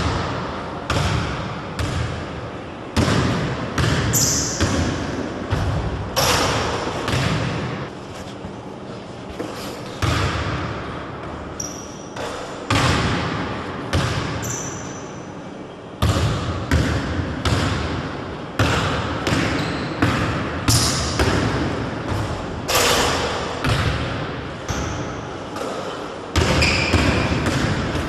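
Basketball thudding on a hardwood gym floor and being caught, roughly once a second, each impact echoing round a large empty sports hall, with a few short high sneaker squeaks now and then.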